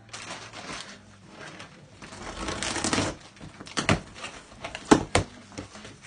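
A taped cardboard box being pulled and torn open by hand: rustling and tearing cardboard, with a few sharp knocks and snaps near the end.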